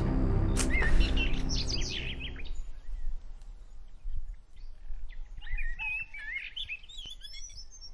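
Dramatic background music fading out over the first two seconds or so, then small birds chirping and twittering, with a busier run of short calls in the second half.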